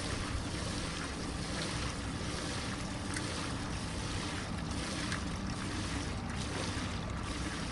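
Wind buffeting the microphone over a steady low hum, with a few faint ticks.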